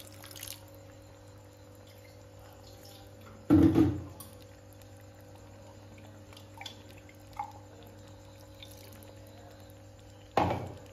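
Pork and potato stew in a pan, soft bubbling and dripping after hot water has been added, over a faint steady hum. Two louder thumps break in, one about three and a half seconds in and one near the end.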